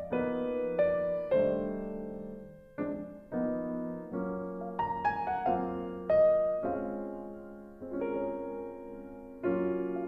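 Soft piano music: chords struck and left to fade, with a melody on top.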